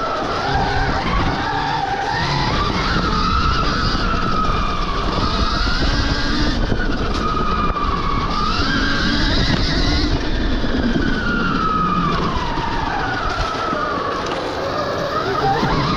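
Stark Varg EX electric dirt bike's motor whining, its pitch rising and falling again and again as the throttle is worked through the trail, over a steady rumbling noise.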